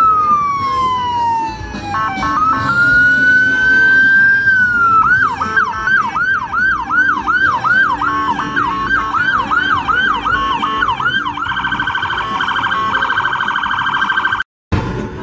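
Police car's electronic siren changing modes: a slow wail falling and then rising, then a quick yelp sweeping about twice a second, then a very fast warble for the last few seconds. The sound cuts out briefly just before the end.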